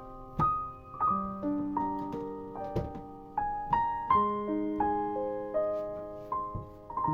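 Background piano music: a slow, gentle melody of single struck notes, each ringing and fading.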